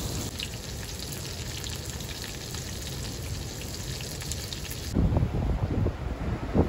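Burgers sizzling in a frying pan: a steady hiss with light crackles. About five seconds in it cuts to storm wind gusting against the microphone in low, uneven rumbles.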